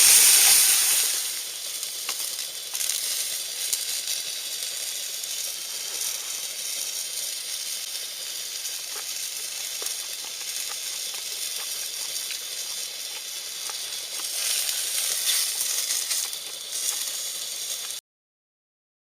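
A steady sizzling hiss with faint scattered crackles. It eases after the first second and cuts off abruptly near the end.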